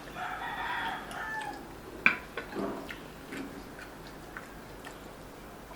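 Eating at a table: a short voice-like hum at the start, then a sharp clink of a utensil against a dish about two seconds in, followed by a few faint clicks.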